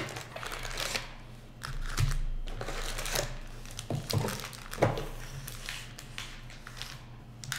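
Foil-wrapped trading card packs crinkling and rustling as they are handled and pulled out of a cardboard hobby box, with irregular crackles and a few light knocks.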